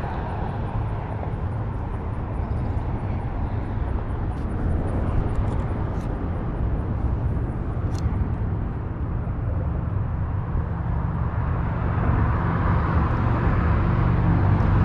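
Steady road traffic noise from the highway bridge overhead: a low rumble with a hiss above it that swells near the end.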